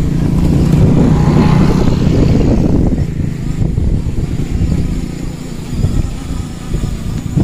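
A 7-inch FPV quadcopter's brushless motors and propellers buzzing as it throttles up and lifts off. The steady hum is loudest in the first few seconds, then wavers as the drone climbs away.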